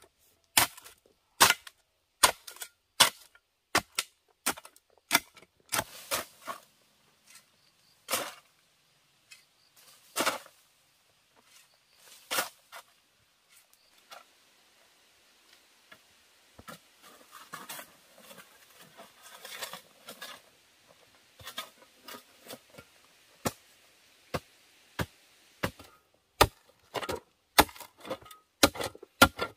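A hand hoe's metal blade chopping into hard, stony earth with sharp strikes, roughly one a second. In the middle the strikes thin out into scraping and rustling of loose soil and stones, then the chopping picks up again near the end.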